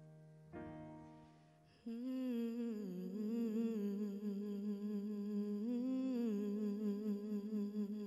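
A keyboard chord from the backing track rings out and fades. About two seconds in, a girl begins humming a slow, wordless melody into a microphone, her pitch gently wavering.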